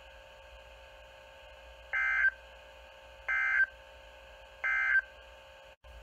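NOAA Weather Radio SAME end-of-message data signal through a Midland weather alert radio's speaker: three short, identical buzzy digital bursts about a second and a half apart, marking the end of the broadcast warning, over a faint steady hum.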